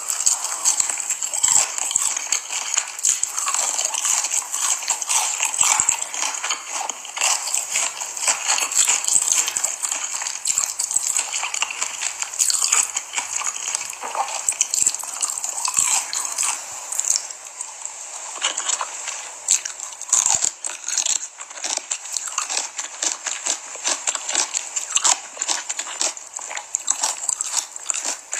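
Close-miked eating: continuous chewing and biting, with a dense run of sharp wet clicks and crackles.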